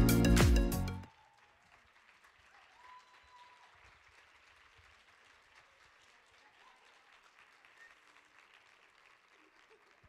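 Music cuts off sharply about a second in, followed by faint audience applause that goes on steadily to the end.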